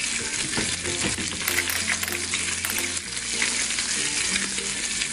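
Steady, recorded frying sizzle sound effect, as a toy play-kitchen stove gives with a pan on its burner, over faint background music.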